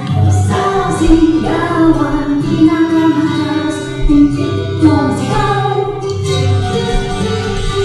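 A woman singing a song with instrumental accompaniment.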